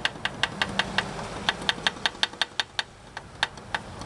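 Connecting rod of a removed Chevrolet Trailblazer engine being rocked by hand on the crankshaft, clacking metal on metal in quick, uneven clicks, several a second. The free play is the sign of a spun rod bearing.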